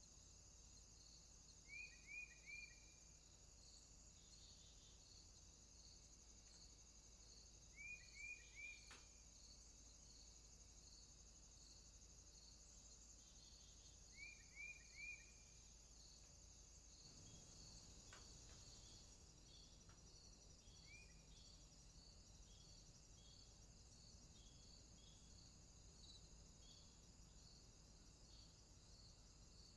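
Faint outdoor ambience of crickets or other insects: a steady high trill with a chirping pulse about twice a second. Over it, a bird gives a short call of three quick falling notes three times, about six seconds apart, and later a single note.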